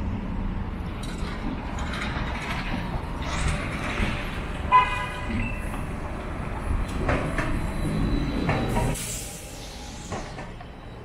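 Street traffic noise from an electric trolleybus running close by. There is a brief pitched beep about five seconds in, and a short hiss near nine seconds, after which the noise drops off.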